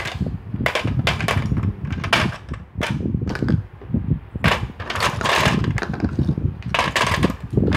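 Battery-powered toy hot-pot game running: a low motor grind with repeated plastic clatter as the plastic food balls knock about in the pot and are picked out with plastic tongs and dropped into plastic bowls.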